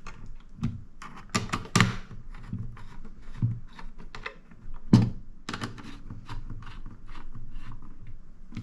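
Small screwdriver working the heatsink screws inside an HP Elite Mini 800 G9 mini PC: a run of irregular small clicks and taps of metal on metal and plastic, with one louder knock about five seconds in.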